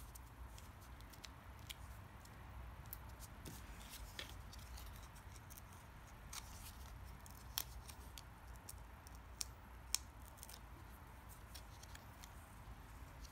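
Faint handling noise of hands working small pieces of cardstock: scattered light clicks and paper rustles, with a couple of sharper clicks in the second half.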